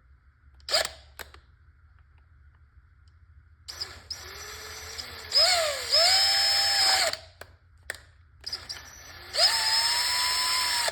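Power drill in screw mode on its lowest clutch setting, turning a replacement guide pin in and out of a threaded hole to clean the threads. It runs in two spells: the first rises and dips in pitch, and the second holds a steady pitch. A short click comes about a second in.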